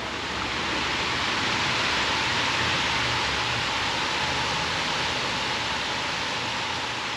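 Steady rushing hiss of falling water, strongest in the upper range, swelling slightly early on and slowly fading near the end.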